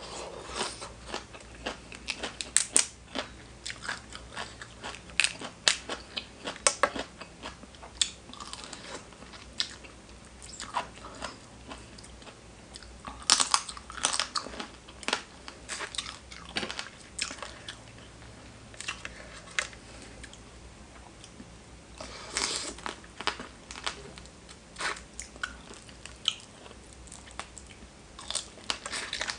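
A person biting into and chewing crunchy food, spicy seafood papaya salad with raw vegetables, close to the microphone in semi-ASMR style. Irregular crunches come throughout, loudest in a cluster a little under halfway through and again about three-quarters of the way through.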